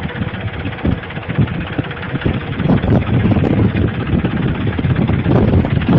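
Tractor engine running with a chugging low rumble, growing louder about halfway through, with some wind on the microphone.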